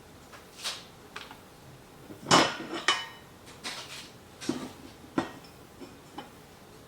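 Flat-pack end table parts knocking and clattering as they are handled and set against each other: a dozen or so separate knocks, the loudest about two and a half seconds in, some with a brief ring.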